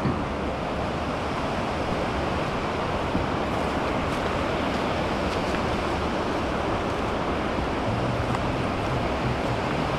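Steady rush of the Linville River's flowing water.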